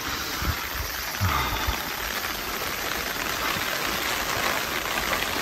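Steady, even hiss of water outdoors, with a few soft low thumps in the first two seconds, likely footsteps as the camera is carried along.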